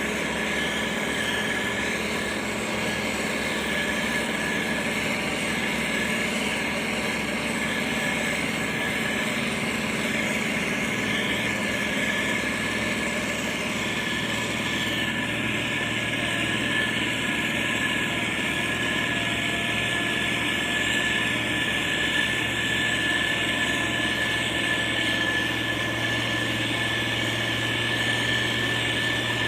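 Diesel engine of heavy road-building machinery running steadily, with a steady high whine over it.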